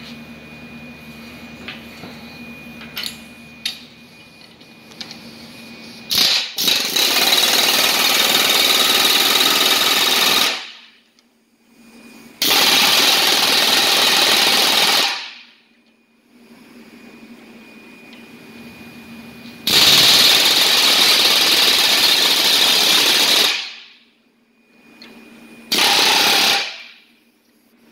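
Pneumatic air hammer running in four bursts: three of a few seconds each and a short one near the end, with pauses between them.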